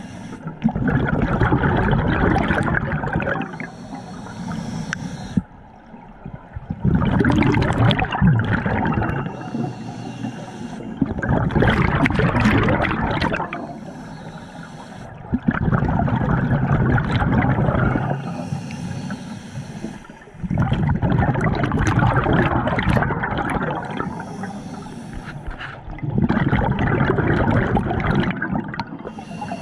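Scuba diver breathing through a regulator underwater: a loud rush of exhaled bubbles about every five seconds, six times, with a fainter hiss between breaths.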